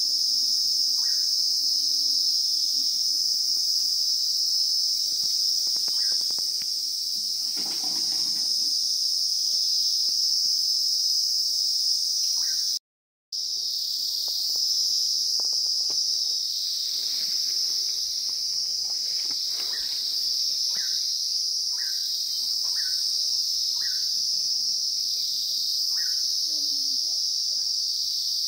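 Steady, high-pitched drone of a chorus of insects, with short bird chirps repeating about once a second in the second half. The sound cuts out briefly about 13 seconds in.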